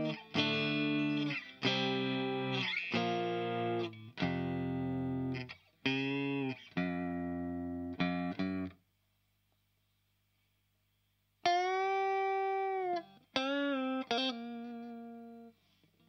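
Fender Rocky Stratocaster played through a THD Univalve tube amp with a KT88 power tube, into a Marshall cabinet with Celestion G12-K100 speakers. A run of chords is strummed about one a second, then comes a pause of about two and a half seconds with only a faint low hum. A single chord is then held and rings out, followed by a few short chords.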